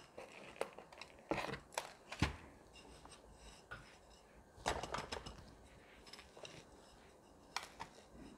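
Gritty potting mix with granite grit poured from a plastic trowel into a terracotta pot and pressed down by hand: scattered short rustles, scrapes and light taps, in a couple of clusters.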